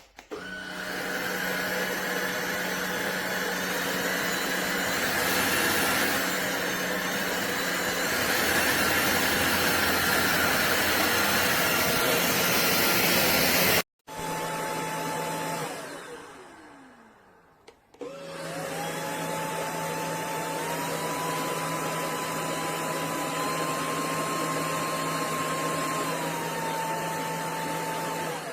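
DIFFULL V20 cordless stick vacuum running with a steady motor whine and rushing air, which cuts off abruptly about halfway. The motor is then switched off and its whine falls away as it spins down. It starts again with a rising whine, steps up in pitch twice, drops back down, and begins to spin down at the very end.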